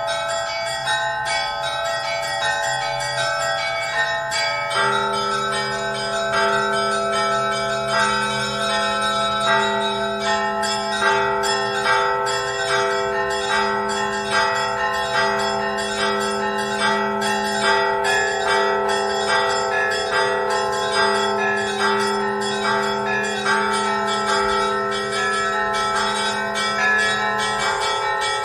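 Church bells ringing in a continuous rhythmic peal, with a deeper bell joining about five seconds in.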